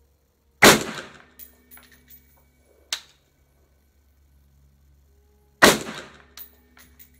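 Two single aimed shots from an SA20, the civilian semi-automatic Colt Canada C7A2 rifle in 5.56 mm, about five seconds apart. Each is a loud crack with an echoing tail, followed by lighter clinks, and a smaller sharp crack comes about three seconds in.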